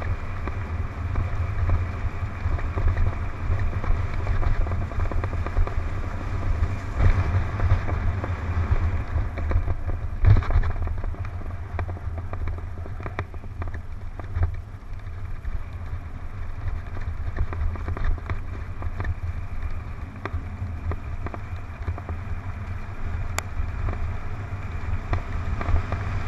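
Mountain bike descending a dirt trail at speed, heard from a helmet-mounted camera: a steady low rumble of wind buffeting the microphone and tyres on the ground, with frequent clattering knocks from the bike over bumps. One harder knock stands out about ten seconds in.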